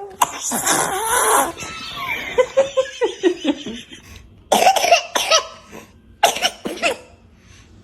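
A baby sneezing: one long sneeze near the start, then short pitched vocal sounds, then two more quick sneezes about four and a half and six seconds in.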